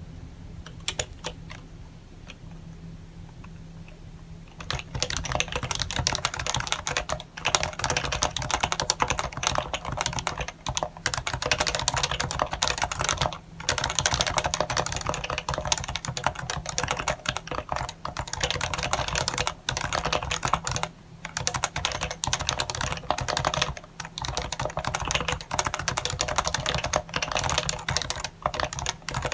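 Typing on an HHKB Professional 1 keyboard with Topre switches: a few separate keystrokes at first, then fast, continuous typing from about five seconds in, broken by a few brief pauses.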